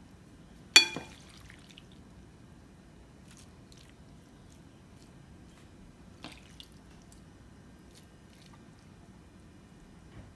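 Kitchen tongs clink once, sharply and with a short ring, against a glass baking dish about a second in, followed by a few faint taps as the tongs spread cooked fettuccine noodles in the dish, over a low steady background hum.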